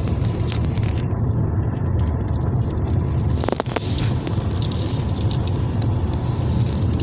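Steady road noise inside a moving car's cabin: tyre and engine rumble at highway speed, with a couple of faint clicks about three and a half seconds in.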